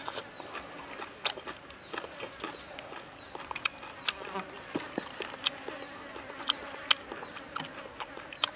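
Close-up eating sounds: chewing with many sharp clicks and smacks, and a knife and fork cutting and scraping on a wooden board. A steady buzz of insects runs underneath.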